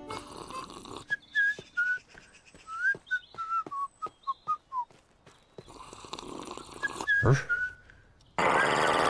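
A man whistling a jaunty tune in short, gliding notes, with light footsteps ticking beneath it. Near the end a sudden loud rushing noise takes over.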